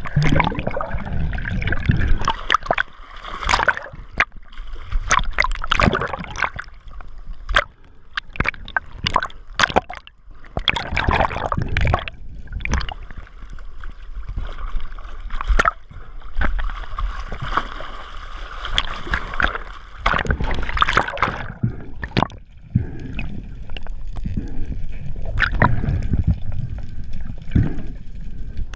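Water splashing and gurgling in irregular surges, stirred by a spearfisher moving through it.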